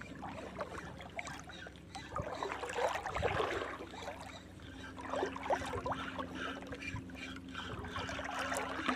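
Water sloshing and lapping close by, louder in two spells, over a faint steady hum.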